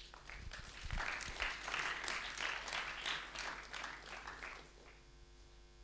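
Audience applause: many hands clapping, swelling over the first couple of seconds and dying away near the end.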